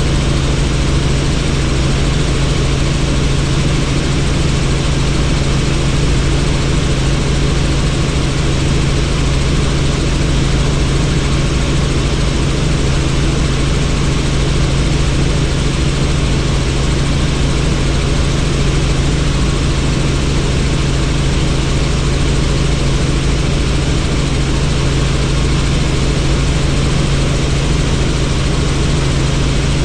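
Helicopter in flight heard from inside the doors-off cabin: a loud, steady drone of rotor and engine with a constant low hum under a wide rushing noise.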